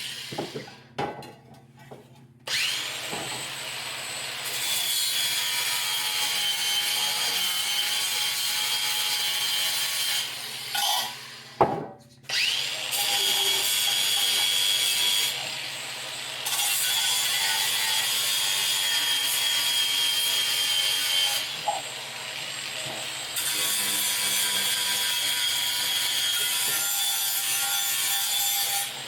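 A power tool grinding rust and corrosion off a metal battery hold-down: a steady, loud scraping with a high whine. It cuts out briefly about a second in and again around ten seconds in, with a sharp knock just before it starts up again.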